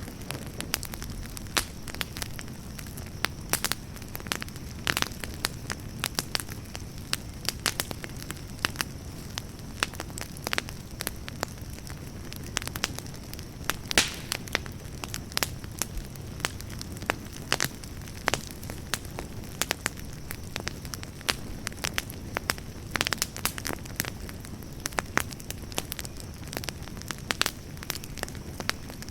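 Campfire burning and crackling: a steady low rumble of flame with frequent sharp, irregular pops and snaps, one louder pop about halfway through.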